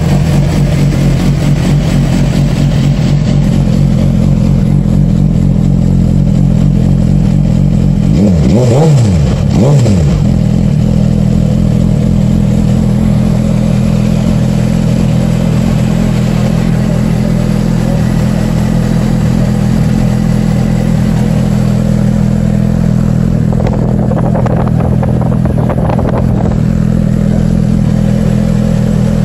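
Suzuki GSX-R1000's inline-four engine idling steadily, with two quick throttle blips about nine seconds in and a lighter rev about twenty-five seconds in.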